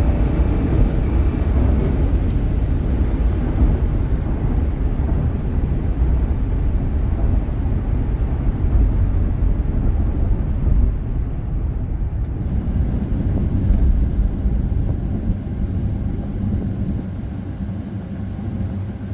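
Ford Crown Victoria's 4.6-litre V8 running under way, a heavy steady low rumble mixed with road noise that eases off a little near the end.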